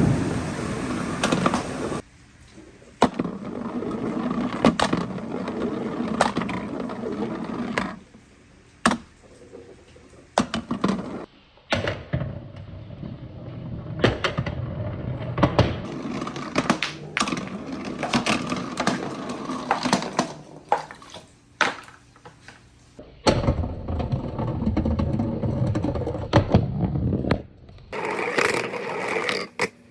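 Marbles rolling along wooden marble-run tracks with a steady rolling rumble and sharp clicks as they knock against the wood and each other. The sound changes abruptly several times.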